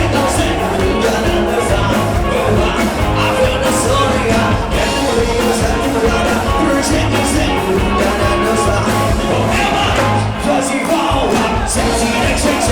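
Live rock music from a band with a singer, drums keeping a steady beat.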